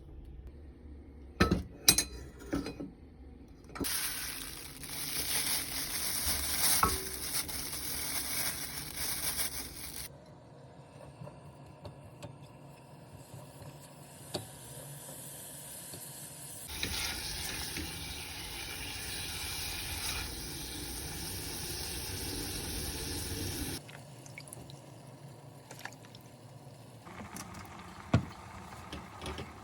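Kitchen cooking sounds: a few sharp clinks of utensils or dishes, then two long stretches of hissing, several seconds each, that start and stop abruptly, with a few more clinks near the end.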